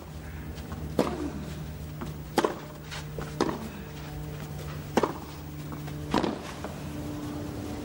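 Tennis baseline rally on a clay court: sharp racket strikes on the ball about every one and a half seconds, with quieter ball bounces in between.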